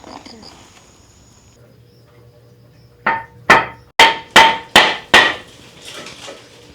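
Six quick hammer blows, about two or three a second, each hard strike ringing briefly.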